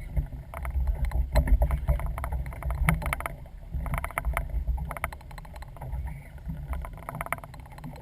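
Low, uneven rumble of wind and water around a small fishing boat, with irregular clicks and knocks scattered through it.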